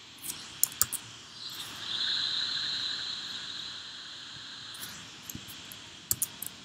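Laptop keyboard and trackpad clicks: three sharp taps near the start and another quick cluster near the end. Between them a soft hiss swells up and fades away over about three seconds.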